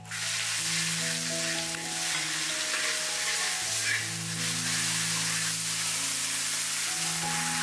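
Food frying in hot oil: a steady, dense sizzle that starts suddenly at the beginning, over background music of sustained notes.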